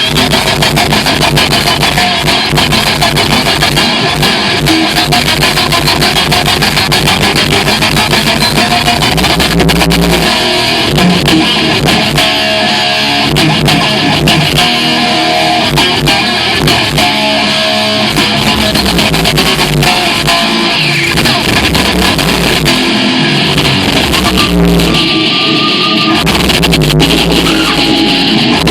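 Live metal band playing loud: electric guitars and bass over drums, with no break.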